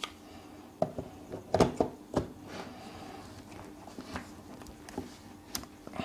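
Handling noise from a camera rig with a metal battery adapter plate being picked up and moved: about half a dozen light knocks and clicks at uneven intervals, over a faint steady hum.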